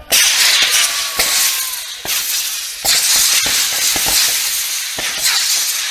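Pyrotechnic flares burning with a loud, steady hiss, with several sharp bangs going off at roughly one-second intervals.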